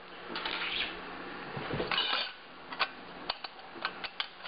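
Deflector being fitted by hand into the open chrome body of a 1950 Acorn Charm vending machine: rustling and a scrape, then a run of light, sharp clicks of hard parts knocking in the second half.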